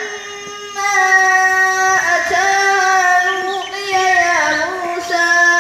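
A child chanting a melodic Quran recitation, holding long drawn-out notes and gliding between them in ornamented phrases, with a short break about two seconds in.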